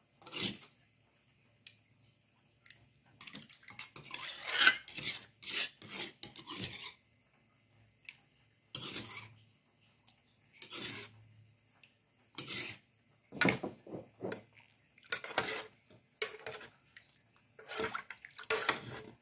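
Metal ladle stirring and scraping liquid in an aluminium pot: irregular bursts of sloshing, scraping and clinks against the metal, with short quiet gaps between strokes.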